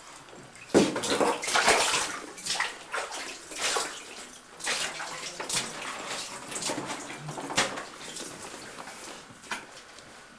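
Water splashing and sloshing in a shallow underground cave stream, in irregular bursts like feet wading through it. It is loudest from about one to two seconds in.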